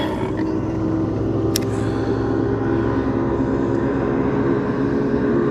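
Boat motor running steadily, a low even drone that slowly grows louder, with a single sharp click about a second and a half in.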